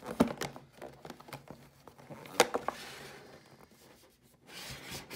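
Handling and rummaging through the contents of a drone's cardboard box: a few sharp knocks, the loudest about two and a half seconds in, with rustling of packaging between them.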